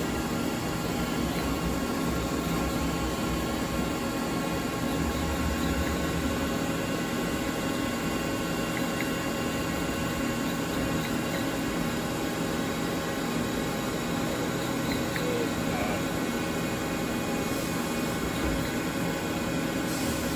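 Nomura NN-20YB Swiss-type CNC lathe running under power: a steady machine hum with several steady tones over an even noise.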